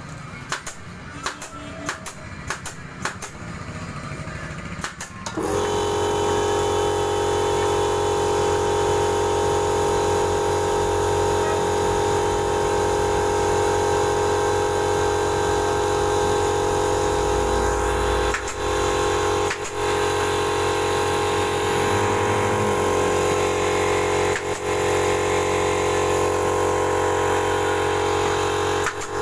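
Pneumatic staple gun firing in quick succession into a motorcycle seat base. About five seconds in, an air compressor starts up and runs steadily, with a few more staple shots over it.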